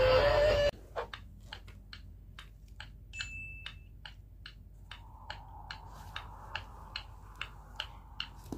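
Steady light ticking, about three ticks a second, with a short high beep about three seconds in and a faint hum joining about five seconds in.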